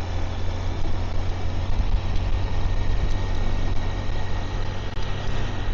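Motorbike engine running steadily, a constant low hum under an even rush of noise.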